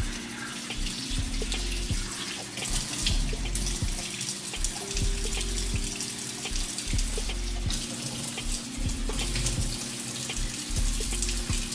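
Kitchen faucet running steadily into a stainless-steel sink, with hands repeatedly splashing water onto a face to rinse off a clay mud mask.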